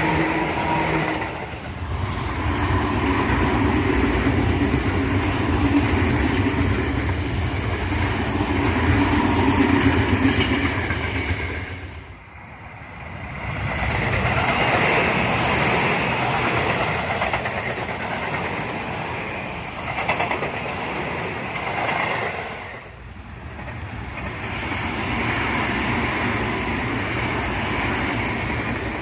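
Tobu Tojo Line electric trains passing, wheels on rails with some clickety-clack. The sound drops out sharply a few times as one passing gives way to the next, with a whining motor tone near the start.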